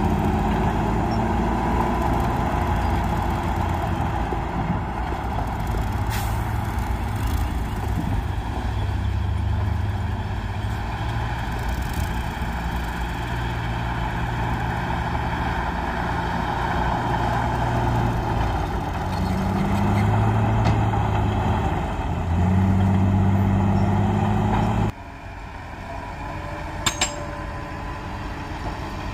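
Heavy diesel engine of an earthmoving machine running hard, its pitch rising and falling in the later seconds. About four seconds before the end the sound drops suddenly to a quieter engine hum, with two sharp clicks shortly after.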